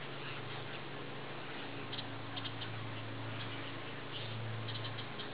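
Steady hiss of light rain over the lake, with a steady low hum underneath. A few short runs of quick high ticks come about two seconds in and again near the end.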